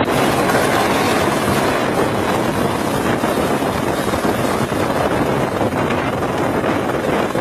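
Light helicopter hovering low, its rotor and turbine making a loud, steady rush, with wind buffeting the microphone.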